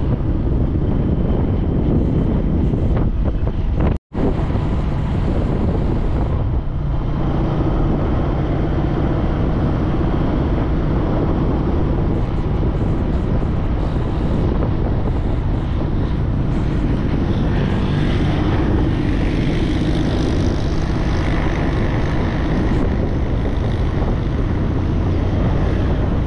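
Motorcycle engine running steadily while riding, over a rush of wind and road noise. The sound cuts out for an instant about four seconds in.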